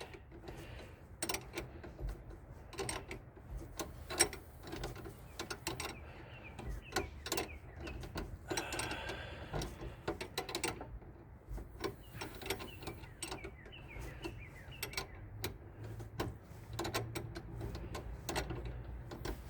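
Socket ratchet wrench clicking in short, repeated strokes as a nut is run down a long threaded rod.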